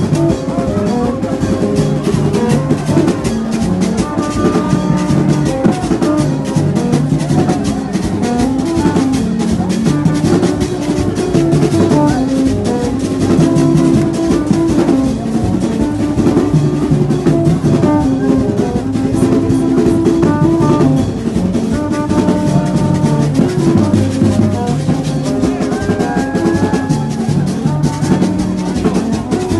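Music with steady drumming and percussion under a melody of short pitched notes.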